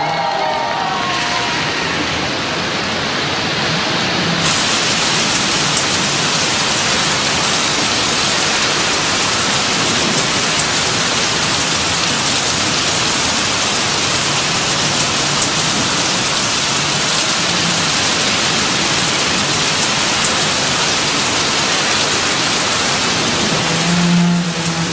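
Heavy rain pouring down on a street and pavement: a steady, dense hiss that turns brighter about four seconds in.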